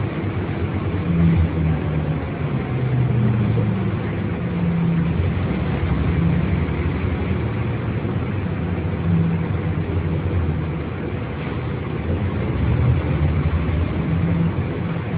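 Mercedes-Benz O 405 bus engine running, its low drone rising and falling in pitch several times.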